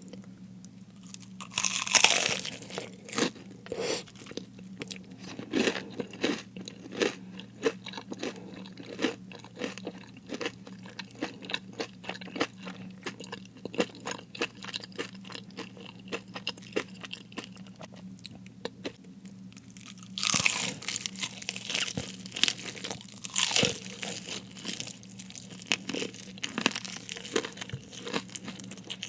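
Close-miked biting and chewing of crispy fried food: a loud crunching bite about two seconds in, then steady crackly chewing, with two more loud crunching bites about two-thirds of the way through.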